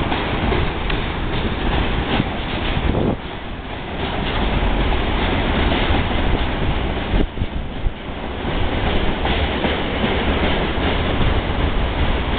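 Freight train of open coal wagons rolling along the rails, a loud, steady noise of wheels on track.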